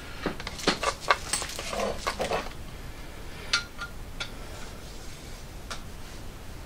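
Small metal parts and hand tools clicking and clinking against each other: a quick run of light clicks over the first two and a half seconds, then a few scattered ticks.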